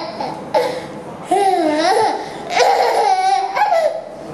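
A toddler laughing delightedly in about three bursts, high-pitched and wavering, the longest near the end.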